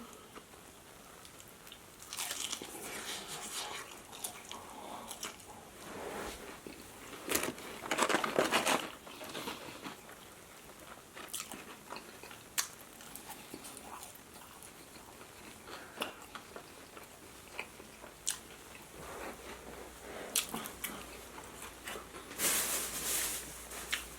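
Close-miked eating of fried fast food: biting and chewing with crunching and wet mouth clicks, in irregular bursts, the loudest bite about eight seconds in and another near the end.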